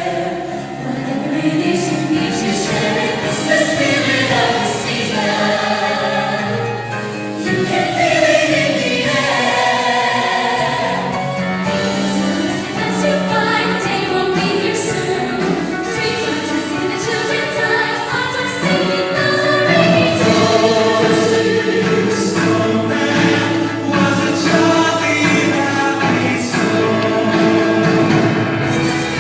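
Choir singing a melody with music, the voices holding long notes that glide between pitches.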